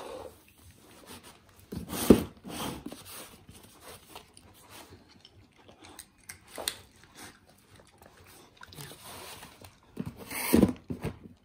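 A beagle and a Pomeranian eating dry kibble: crunching and chewing with a few sharp knocks. The loudest knock comes about two seconds in, and another cluster comes near the end.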